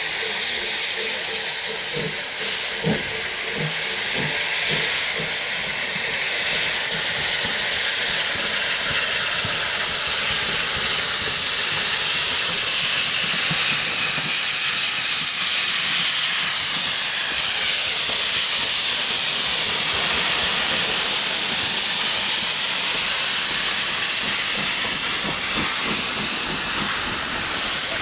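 Norwegian State Railways class 21c steam locomotive No. 376 running in past the platform with a steady, loud hiss of steam that swells as it draws level and passes. A few short knocks sound in the first few seconds.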